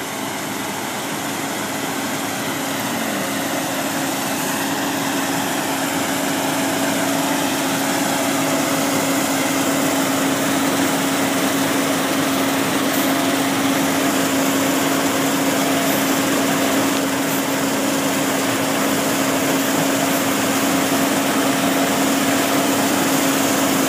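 Combine harvester running steadily while it harvests soybeans: an even machine noise with a steady droning hum, growing a little louder over the first several seconds.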